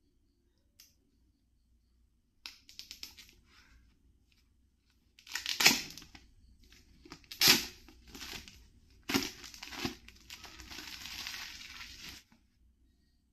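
Earbud packaging being handled and opened: a quick run of crackles, then several loud crinkling, crushing noises and a longer tearing scrape near the end.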